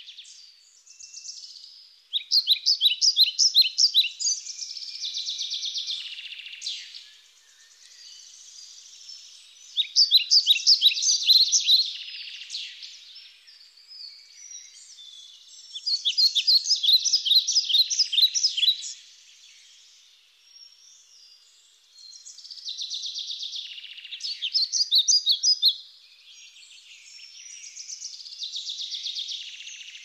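Small songbird singing: phrases of quick, high, repeated notes, each a couple of seconds long, separated by short pauses.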